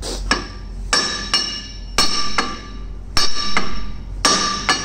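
Hammer blows on a truck axle shaft flange, about nine sharp metallic strikes that ring after each hit and mostly come in pairs. The blows loosen the tapered cone washers holding the flange on the hub studs so the axle shaft can be pulled.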